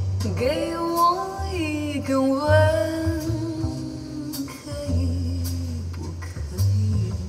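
A song with singing over a deep bass line, played through a car audio system heard inside the cabin: an Alpine PDP-E800 DSP amplifier driving Morel Virtus speakers and a CDT spare-tyre subwoofer.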